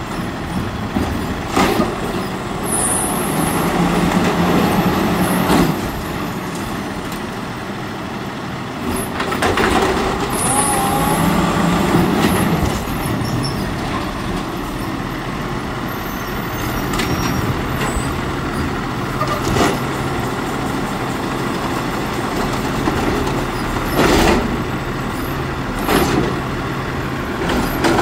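Autocar WX64 garbage truck running at the curb while its Amrep automated side-loader arm works a cart, the engine speeding up twice to drive the arm's hydraulics, with a whine from the arm. A few short sharp noises come through, two of them close together near the end as the cart is raised over the hopper.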